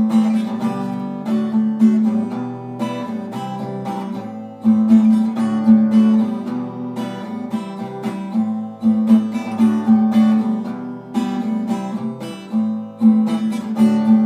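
Acoustic guitar strumming chords in a steady rhythm: an instrumental break in a song, with no singing.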